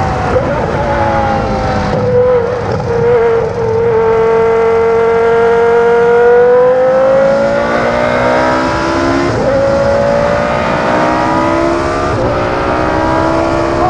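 Prost Formula 1 car's V10 engine running hard at high revs. Its pitch sinks a little, holds, then climbs steadily. It drops sharply twice, at upshifts about two-thirds through and near the end, and climbs again after each.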